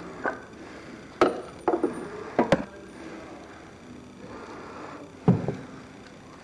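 A few sharp metallic clanks and knocks with brief ringing, tools or parts being handled and set down during motorcycle maintenance: a cluster in the first three seconds, then one more loud knock about five seconds in.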